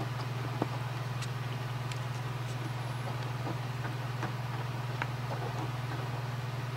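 A steady low hum, with faint small clicks and scratches from a cotton pad on a wooden skewer being worked into the grooves of a metal toy-train knuckle coupler.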